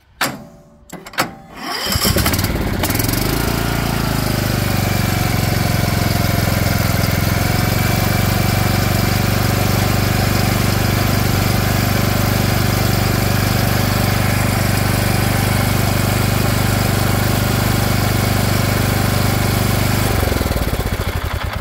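Cub Cadet XT1 lawn tractor engine catching after a few clicks, rising briefly in pitch, then running steadily until it dies near the end. The tractor has an intermittent connection in the wiring to its fuel shutoff solenoid, which the owner is wiggling.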